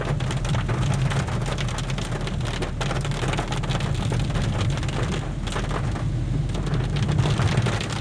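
Rain hitting a car's windscreen and roof, with the hiss of tyres on a wet road, heard inside the moving car over a steady low engine and road rumble.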